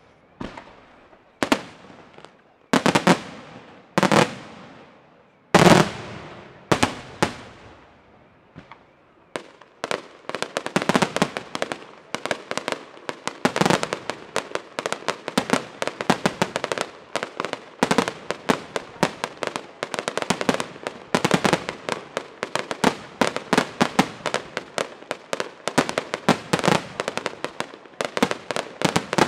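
Aerial fireworks shells bursting with loud single bangs, about a second apart. From about nine seconds in they give way to a dense, rapid, continuous crackle of many small reports.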